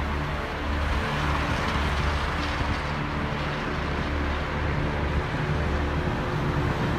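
Road noise heard inside a moving car's cabin: steady engine hum and tyre rumble, with surrounding traffic.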